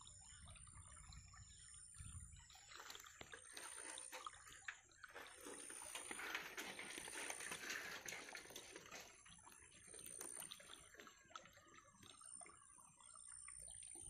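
Faint water trickling and dripping from a freshly lifted bamboo fish trap full of fish, with small wet clicks; the trickle swells for a few seconds in the middle.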